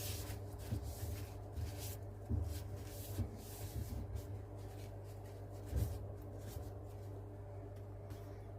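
A copper pipe being rubbed and wiped clean by hand: short, scratchy rubbing strokes, frequent for the first few seconds and then fewer. A steady low electrical hum runs underneath.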